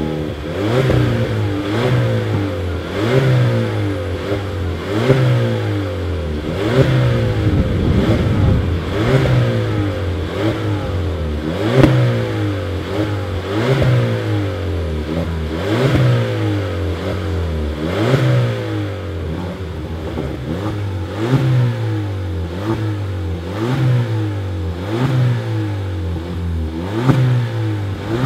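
VW Scirocco 1.4 TSI turbocharged four-cylinder petrol engine being revved repeatedly at a standstill through a 2.5-inch stainless steel Cobra Sport performance exhaust. The engine is blipped about once every one to two seconds, each rev rising quickly and falling back, and the blips come faster in the later part.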